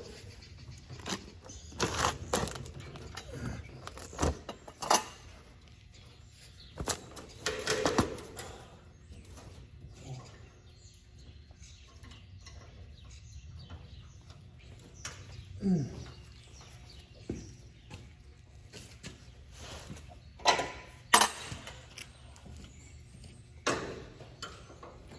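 Scattered knocks and clinks of hand tools and hardware as a bolt is fitted during a header bearing repair. The sounds are irregular, with quieter stretches between them.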